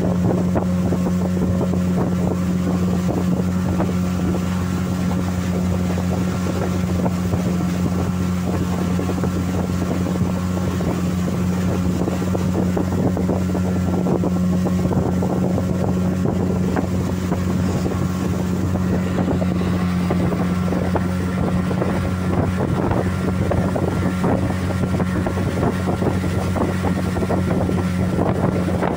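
Small boat's outboard motor running at a steady cruising speed, one constant drone throughout, with water rushing past the hull and wind buffeting the microphone.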